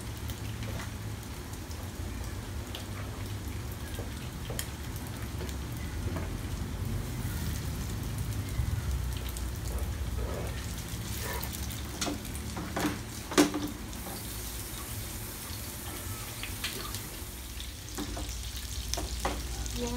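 Pork meatballs sizzling as they shallow-fry in oil in a nonstick pan, browning on the outside. A few light knocks come as meatballs are set into the pan, with one sharper knock about two-thirds of the way through.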